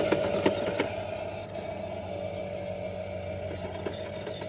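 Remote-control toy garbage truck's small electric drive motor whirring as the truck drives away over concrete, growing fainter, with a few sharp clicks in the first second.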